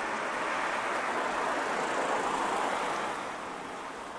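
A passing vehicle on the street: a rush of tyre and road noise that builds, peaks about two seconds in, then fades away.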